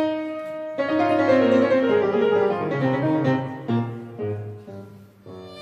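Background piano music, a slow melody of single struck notes left to ring.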